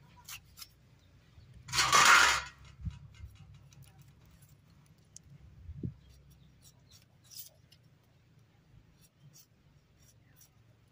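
Beetroot being cut with a knife: sparse light clicks and taps of the blade, with a loud brief rustle about two seconds in and a couple of soft thumps.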